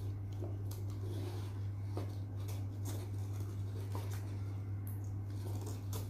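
A braided MagSafe charging cable being unwound and handled: light rubbing, rustling and a few small clicks, over a steady low hum.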